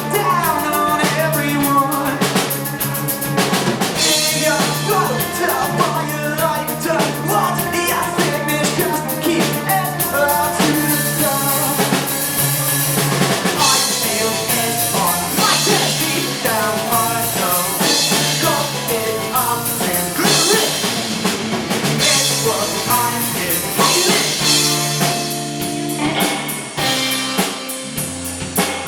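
Live rock band playing, with a drum kit to the fore: bass drum and rimshots under guitar and bass.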